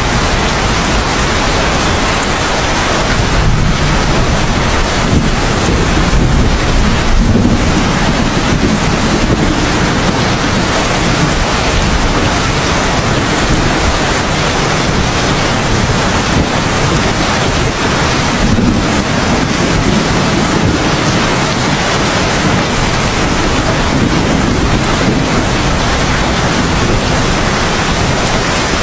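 Heavy, steady rain hissing without a break, with low rolls of thunder swelling and fading, the strongest a few seconds in.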